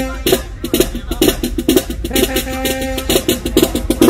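HBCU marching-band-style brass and drums playing live: fast, steady drum hits under long held brass notes that break off and come back in a couple of times.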